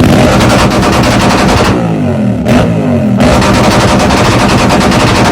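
Yamaha MT-07's parallel-twin engine running loud through an Akrapovic exhaust, a rapid staccato exhaust beat; the revs swing down and back up about two seconds in.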